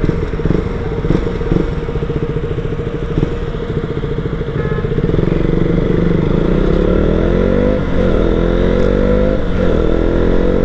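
Motorcycle engine running steadily at low revs, then pulling away from about five seconds in, its pitch rising through the gears with two short dips at the gear changes.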